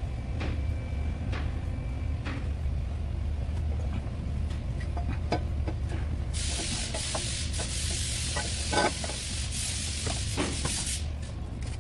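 Engine idling as a steady low hum, with scattered light clicks over it. About six seconds in, a loud hiss starts, holds steady for about four and a half seconds, then cuts off.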